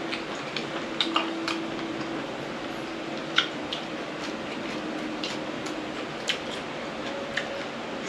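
Mouth sounds of eating blanched baby octopus and blood cockles: wet chewing, with scattered short clicks and lip smacks over a low steady hum.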